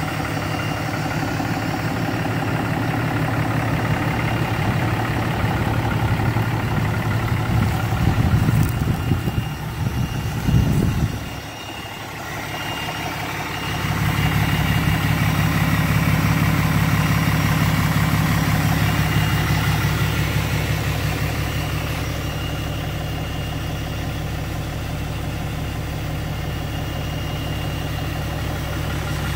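A 2010 Ram pickup's engine idling steadily. About twelve seconds in, the sound dips and goes thinner for a couple of seconds, then the same steady idle comes back.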